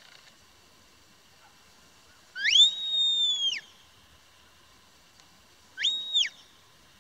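Herding whistle commands from a handler to a sheepdog working sheep: a long whistle that rises, holds one pitch and falls away, about two and a half seconds in, then a shorter one of the same shape near the end.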